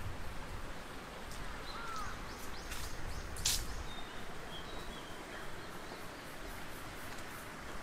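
Outdoor ambience: a steady low rumble with a few short bird chirps and whistles, and a handful of sharp clicks about two to three and a half seconds in.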